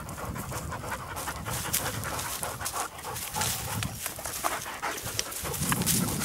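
A German shorthaired pointer panting steadily, close to the microphone.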